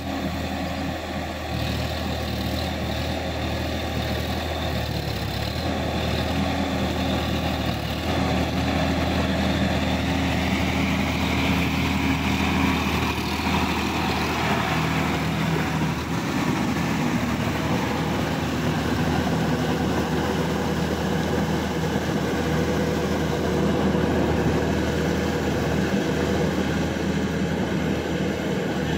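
Sonalika DI-50 tractor's diesel engine running steadily as it works a flooded, muddy paddy field, getting a little louder partway through.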